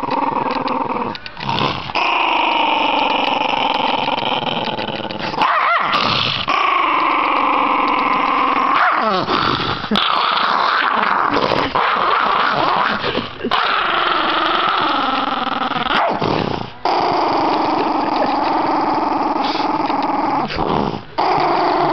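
Small black-and-tan dog growling in long, wavering growls of several seconds each, broken by short pauses. It is guarding a sock: possessive growling, a warning over a prized object.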